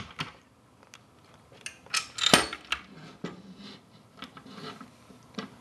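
Irregular small metallic clinks and knocks of an Allen wrench and screws being handled on the rifle's stock, the loudest knock a little over two seconds in.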